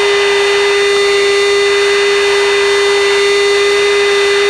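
Aircraft intercom or radio audio with no one talking: a steady electrical whine of one fixed pitch over a constant rushing hiss of jet cockpit noise.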